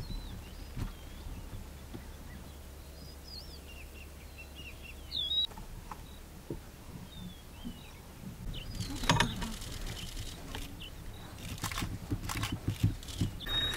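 Outdoor ambience with birds chirping, short curved calls in the first half, then scattered clicks and knocks in the second half.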